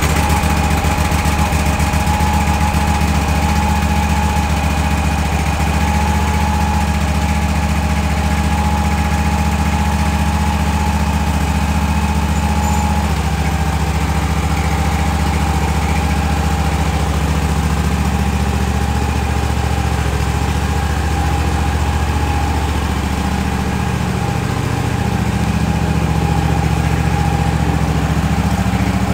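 Tractor engine running steadily just after starting. Its note shifts a few times in the second half.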